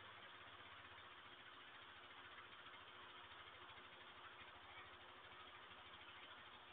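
Faint, steady low mechanical hum with a fast, even pulse, under the hiss of a security camera's microphone.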